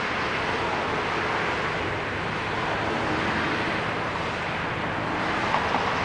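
Steady traffic noise from cars on a multi-lane street, with a couple of light knocks near the end.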